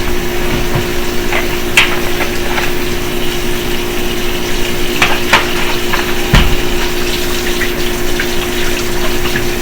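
Kitchen tap running steadily into the sink during dish washing, with a few sharp knocks of dishes being handled.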